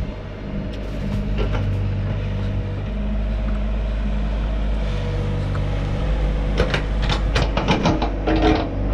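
An engine running steadily, with a quick run of clanks and knocks in the last few seconds.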